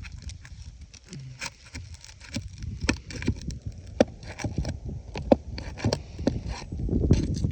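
Hand tool working under asphalt roof shingles to reach and pry up the nails: irregular clicks, taps and scrapes, some sharp and loud, over a low rumble.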